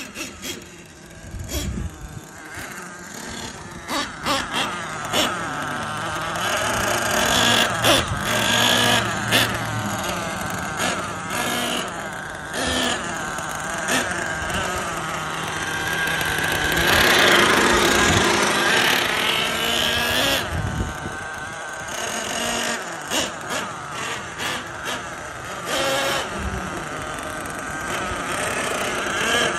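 Traxxas T-Maxx nitro RC monster truck's .28 nitro engine running as the truck is driven. It revs up and down over and over, loudest at about the halfway point.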